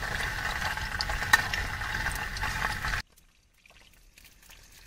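Paneer cubes sizzling and crackling in hot oil in a steel kadai on a portable gas stove, stirred with a metal ladle, with one sharp tick about a second in. The sizzle cuts off suddenly about three seconds in, leaving only faint sounds.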